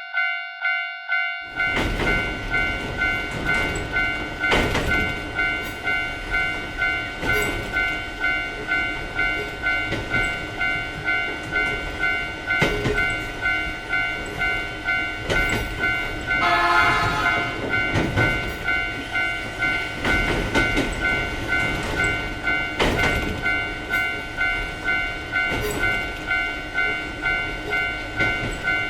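Japanese railroad crossing alarm bell ringing in a steady kan-kan, about two strikes a second, while a train runs past, its rumble and wheel clatter setting in about a second and a half in.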